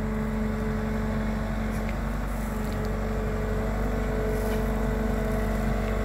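Bobcat T66 compact track loader's diesel engine running steadily at a constant throttle, a continuous even drone, as the loaded machine moves forward.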